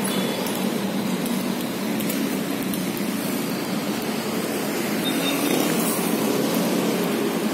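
Road traffic on a busy city street: cars and motorbikes passing close by make a steady rush, swelling a little as a vehicle goes past near the end.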